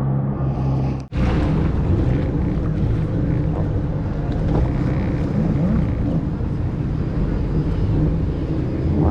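Motorboat engine running steadily under way, with wind buffeting the microphone. The sound drops out sharply for an instant about a second in, then carries on.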